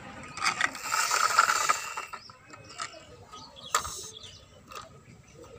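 Plastic toy JCB backhoe loader being handled: a rapid plastic clicking and rattling for about a second and a half near the start, then a few scattered single clicks.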